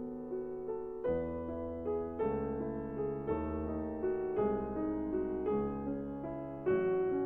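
Background piano music: soft, sustained chords, a new chord struck about once a second.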